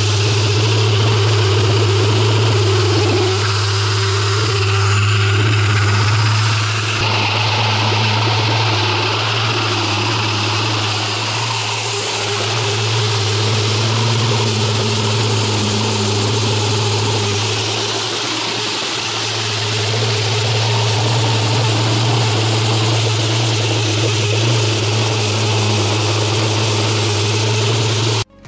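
An engine or motor running steadily with a constant low hum and a hiss over it, easing off briefly twice.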